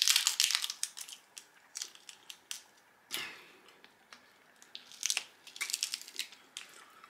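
Cooked snow crab legs being cracked and snapped apart by hand, the shell crackling crisply in close-up. The crackles come in bursts: right at the start, again about three seconds in, and in a run between five and six seconds.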